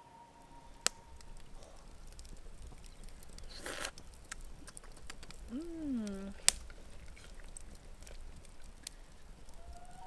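Wood campfire crackling under a cooking pan and pot, with two sharp clicks, one about a second in and a louder one after six seconds, a brief rushing noise near the middle and a short hummed voice. Right at the end a common loon's wail begins.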